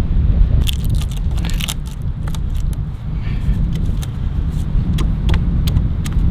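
Sharp crackles and clicks of wood fibres splitting as a knife blade is pressed and levered into the end of a small log, densest about a second in and scattered after that. Beneath them, a steady low rumble of wind on the microphone.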